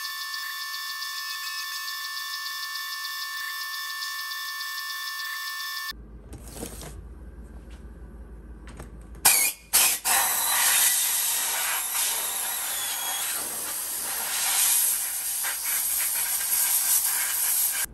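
A CNC mill cutting aluminium, played twenty times too fast, so it comes out as a steady high whine with a regular pulse; it cuts off about six seconds in. About three seconds later a handheld compressed-air blow gun starts hissing loudly, with a few short blasts and then a long blast, clearing aluminium chips off the freshly milled parts.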